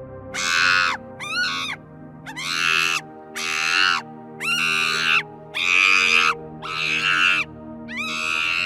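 A monkey calling in a series of about eight screeching calls, each under a second long and coming roughly once a second, over steady background music.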